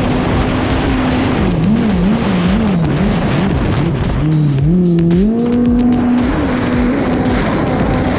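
Kommander GP1 stand-up jet ski engine running hard, its pitch wavering up and down as the throttle changes, then climbing in steps about four seconds in and holding high, over a steady rush of water and wind.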